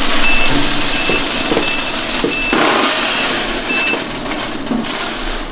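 Wood pellets poured into the steel hopper of a Moesta-BBQ Sheriff pellet grill: a loud, steady rattling hiss that tails off near the end. A short electronic beep repeats about every two-thirds of a second, stopping about four seconds in.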